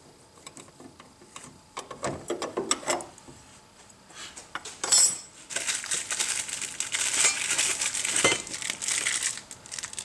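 A crushed stamped-metal outlet cover plate being unscrewed and pulled off a steel outlet box, with small scattered clicks of the screwdriver and screw. About five seconds in comes one sharp, ringing metal clink, followed by steady rustling and clinking as the metal parts are handled.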